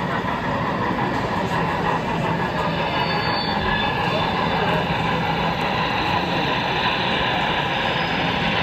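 HO-scale model train running along the layout's track, a steady rolling rumble mixed into even background noise.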